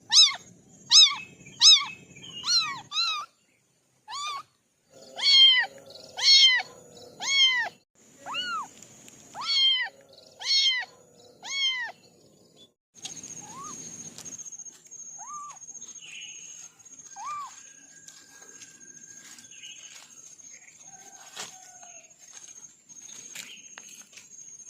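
Kittens meowing: a rapid series of short, high-pitched meows, about one every half second to second, for the first twelve seconds. Then a few fainter meows over a steady thin high tone.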